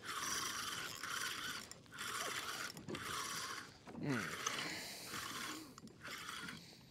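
Fishing reel being cranked in about seven spells of most of a second each, its gears whirring as line is wound in on a hooked small gummy shark.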